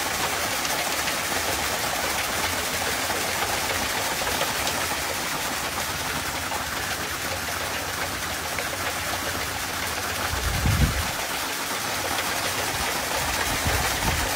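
Steady rush and splash of a water jet from an electric pump striking a spinning wheel of metal cups, with one brief low thump about three-quarters of the way through.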